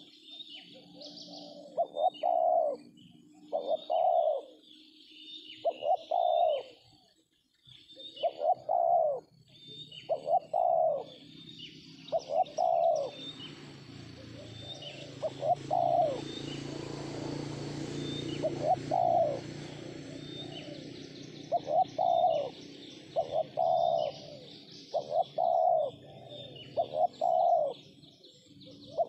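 Spotted doves cooing: short coos repeated about once a second, with small birds chirping high above them. A soft rushing noise swells in the middle and fades again.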